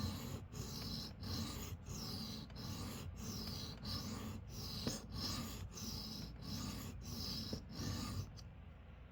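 A pocket-knife blade scraping back and forth across a 325-grit sharpening stone in an even rhythm of about one and a half strokes a second, stopping shortly before the end. The blade's edge is almost apexed on its second side.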